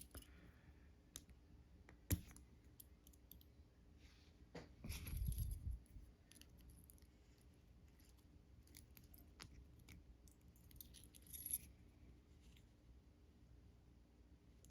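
Faint, scattered clicks and light metallic taps of small padlock parts being handled, with a sharper click about two seconds in and a low dull thud about five seconds in.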